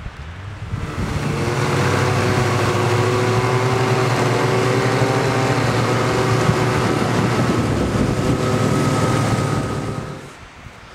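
Arctic Cat snowmobile engine running at steady throttle, coming up about a second in, holding an even pitch, and dropping away near the end.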